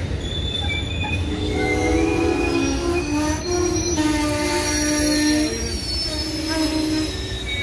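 Amtrak Superliner passenger cars rolling slowly past, their steel wheels squealing in several high, wavering tones over a low rumble as the train slows into the station.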